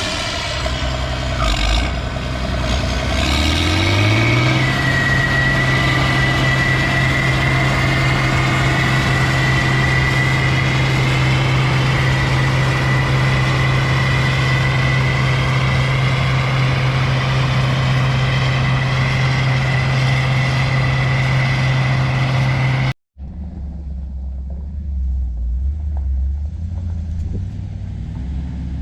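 Heavy farm engine running, its throttle brought up about three to four seconds in and then held at a steady high speed with a high whine over it. About 23 seconds in the sound cuts off abruptly to a different, duller engine sound.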